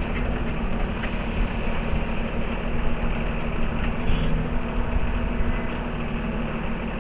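Mahindra 3616 compact tractor's diesel engine running steadily while working its 3720 backhoe, with a higher whine from about one to two and a half seconds in. The sound cuts off suddenly at the end.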